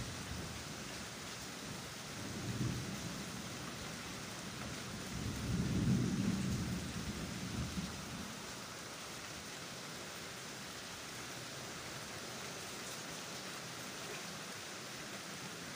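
Steady rain, with a low rumble swelling twice: briefly about two seconds in, then louder and longer from about five to eight seconds.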